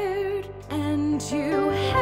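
Slow, tender song: a sung note with vibrato held over a sustained low accompaniment, a brief lull about halfway, then new held notes.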